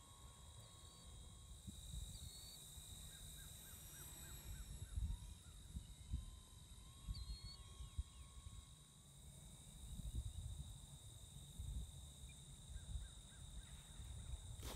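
Rural outdoor ambience: a steady high insect drone with scattered bird chirps and short runs of quick notes, over a low rumble of wind on the microphone. A sharp click at the very end.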